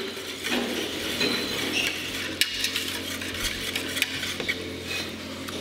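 Wire balloon whisk beating a vinaigrette in a stainless steel bowl: a rapid run of metallic clinks and scrapes as the wires strike the sides of the bowl.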